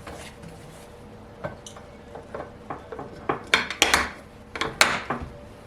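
Dishes and kitchenware being handled, a run of sharp clinks and knocks that grows busier and louder in the second half.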